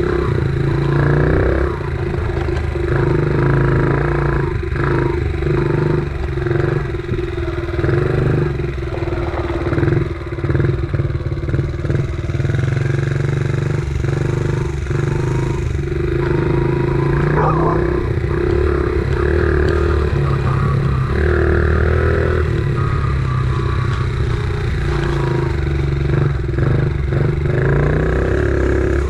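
Dirt bike engine running and revving up and down through a ride over rough grass, with rattling knocks as the bike goes over bumps.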